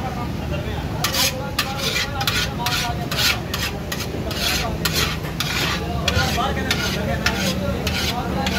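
Cooked biryani being scooped out of a large steel pot with the edge of a steel serving tray: quick scraping, rustling strokes of rice against metal, two or three a second, starting about a second in, over a steady low hum.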